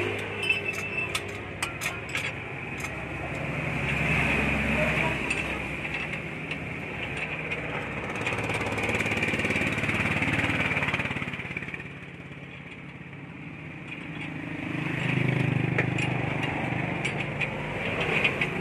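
Vehicle engine noise that swells and fades three times, with a few sharp metallic clicks in the first few seconds.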